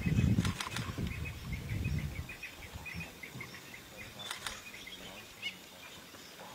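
Male lion roaring: a series of deep grunts, loudest at the start and weakening over about two seconds. A bird chirps over it in quick repeated notes, with a few sharp clicks.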